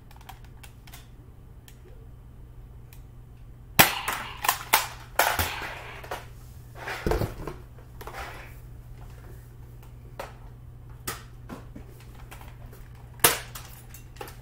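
Nerf foam-dart blasters firing and darts smacking walls and floor: a cluster of sharp clicks and pops about four seconds in, a few more around seven seconds, and a single loud crack near the end, over a low room hum.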